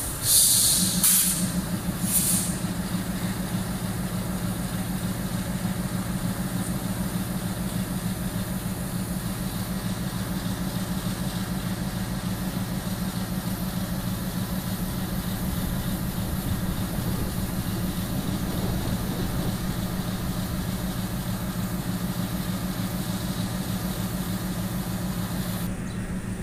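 Bangladesh Railway diesel locomotive: a few sharp bursts of compressed-air hiss from its brake system in the first couple of seconds, then its diesel engine running with a steady, even hum.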